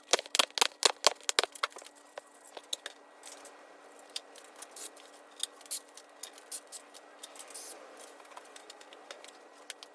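A quick run of sharp taps and clicks in the first second and a half, then scattered lighter clicks: a tool stabbing holes in cardboard to hold the engine's timing-cover bolts.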